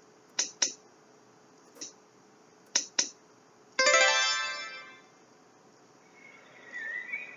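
A few short clicks, then a single bright musical note, like a plucked string or chime, that rings and fades away over about a second.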